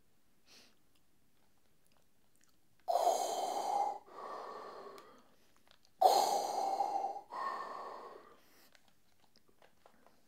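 A man sniffing hard through his nose from a small nasal inhaler, twice, about three and six seconds in; each long sniff is followed by a quieter breath.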